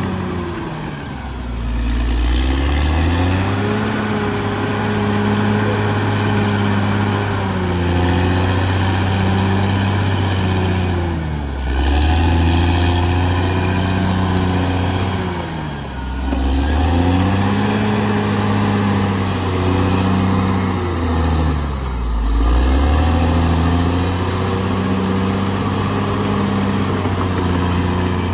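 Bulldozer's diesel engine running hard, its revs dropping and climbing back up several times as the machine works.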